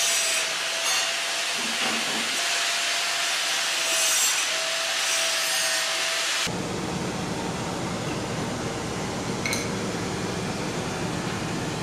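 A rag wiping dust and abrasive grit off a machine tool's metal guideway, a rubbing sound over a steady whirring hum. About six and a half seconds in, the sound changes abruptly to a different, lower steady noise.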